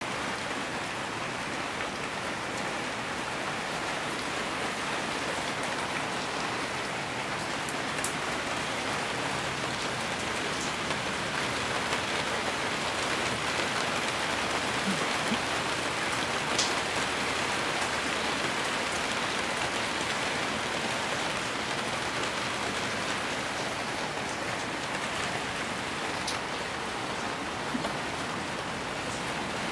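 Steady rain falling, an even hiss with a few louder drips ticking now and then.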